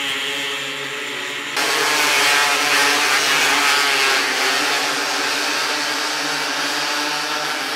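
A pack of 270cc micro sprint cars racing, several small engines running at high revs together. The sound jumps suddenly louder and brighter about a second and a half in, then holds steady.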